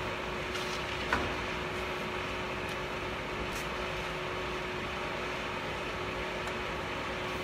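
Steady machine hum with a constant hiss from the factory equipment around the CNC wood router, holding one even pitch. A single light knock about a second in.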